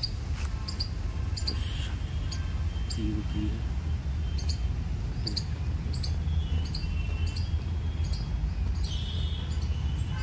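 Outdoor park ambience: a steady low rumble on the microphone, with short high bird chirps repeating every half second or so and a brief trill near the end.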